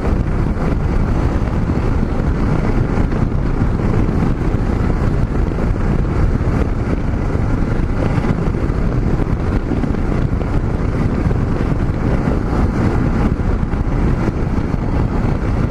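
Steady riding noise of a Yamaha XT660Z Ténéré cruising at highway speed: wind rushing over the microphone, with the engine and tyre noise underneath.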